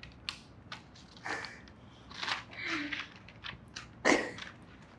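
A person chewing and biting into a hamburger: irregular soft mouth and crunching noises, the loudest a little after four seconds in.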